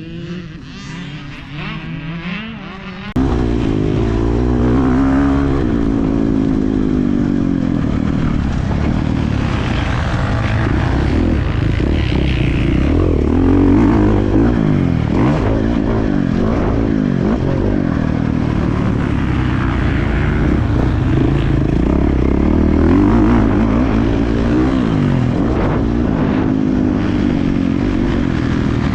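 Husqvarna 450 dirt bike's single-cylinder four-stroke engine revving up and down under throttle while riding. It starts abruptly, loud, about three seconds in, after a quieter engine sound.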